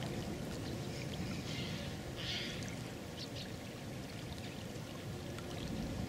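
Wind rumbling on the microphone over the lapping of small waves at the pond's edge, with a few faint ticks and a brief hiss about two seconds in.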